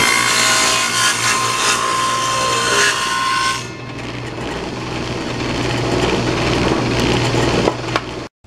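Table saw cutting a rabbet pass along the edge of a 1x12 board, loud for about three and a half seconds, then the blade running freely without load. The sound cuts off abruptly near the end.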